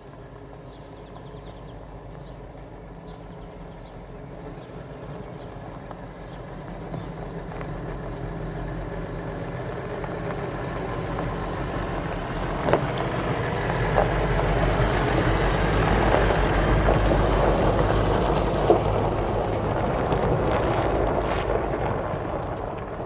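Milk collection lorry's engine running as it comes into the yard. It grows steadily louder until a little past the middle, then eases off near the end.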